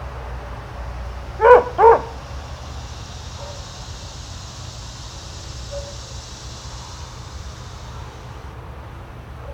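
A dog barking twice in quick succession, two short barks less than half a second apart, over a steady low background hum.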